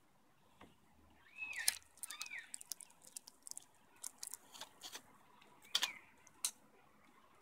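A young Australian magpie gives two short, soft calls that rise and fall. These are followed by scattered sharp clicks and taps, with a louder flurry about six seconds in as it flaps its wings and leaves the railing.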